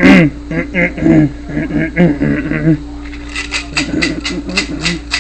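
Wordless pitched vocal sounds for the first half or so, then a quick run of sharp clicks and taps, about five a second, as a metal spatula works beef patties in a nonstick frying pan. A faint steady hum runs underneath.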